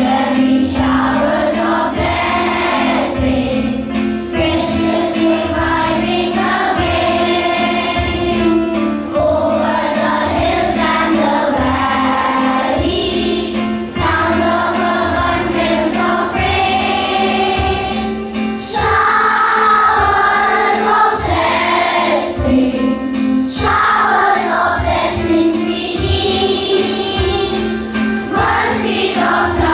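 A group of children singing a morning prayer song together over a steady instrumental accompaniment.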